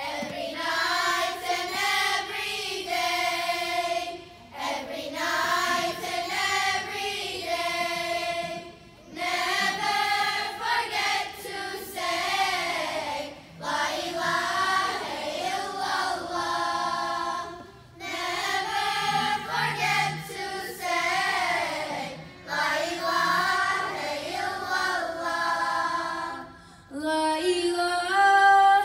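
A girls' children's choir singing religious songs together, in phrases of about four to five seconds with short breaks between them. Near the end the singing gets louder and higher.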